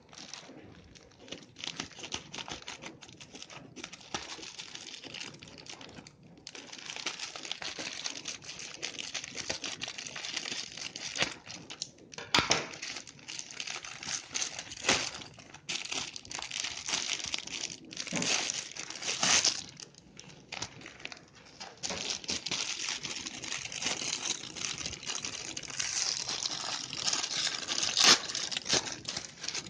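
Plastic packaging crinkling and rustling as a bubble mailer and a clear plastic bag are handled and opened, in uneven bursts with a few sharp crackles.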